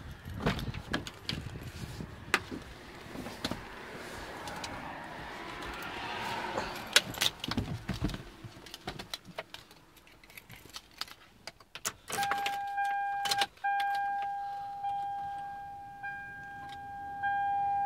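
Car keys jangling with clicks, rustles and a sharp knock as someone opens the 2003 Toyota Highlander's door and climbs into the driver's seat. About twelve seconds in, the dashboard's electronic warning chime starts: one steady high tone, briefly broken once.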